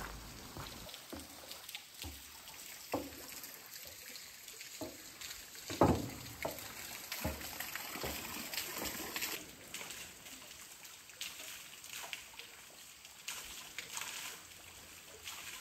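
Water trickling and sloshing, with scattered footsteps and knocks; one louder knock about six seconds in.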